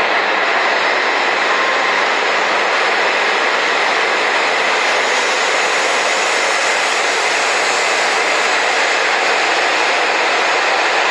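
H5 series Shinkansen train running past along the platform: a loud, steady noise that holds even throughout.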